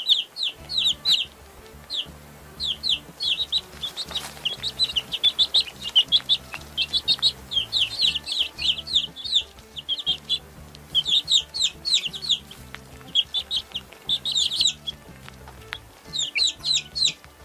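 Baby chicks peeping: many short, high, falling peeps in quick runs, broken by brief pauses. A faint low music bed runs underneath.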